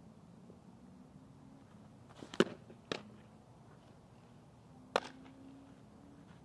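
A softball pitch and its return: a sharp slap at the pitcher's windmill release, then about half a second later the pop of the softball into the catcher's mitt. About two seconds after that there is one more sharp pop as the returned ball lands in the pitcher's leather glove.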